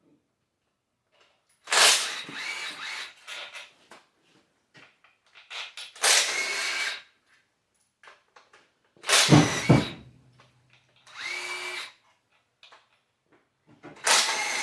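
Handheld power tool run in short spells of whirring, about five in all, unbolting parts from a Honda D16 engine. A deep thud comes about nine seconds in.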